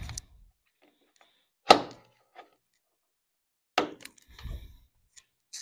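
Knocks and a thud from parts being handled: a sharp knock about two seconds in, then another knock near four seconds followed by a low thud, with a few faint ticks between.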